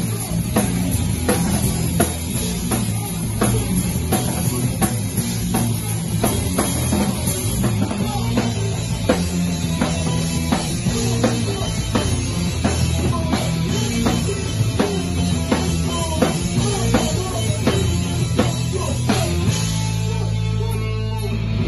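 Rock band playing live, loud and unamplified by any recording polish: drum kit pounding a steady beat under distorted electric guitar and bass. Near the end the drums drop out and a low chord rings on.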